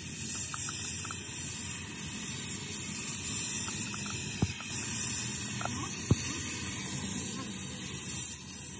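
Oxy-fuel gas torch flame hissing steadily as it heats a spot on a steel truck chassis rail, with two sharp clicks in the middle.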